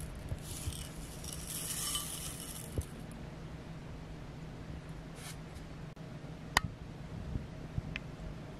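Granola poured onto a bowl of yogurt and blueberries: a brief dry rattle of oats and puffed grains about a second in, a smaller rattle later, and a single sharp click, the loudest sound, past the middle, over a low steady hum.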